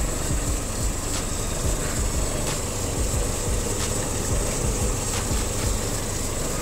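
Nissan Terrano's engine idling steadily, heard close up from the open engine bay, with a fast low pulsing and a faint tick repeating about every two-thirds of a second.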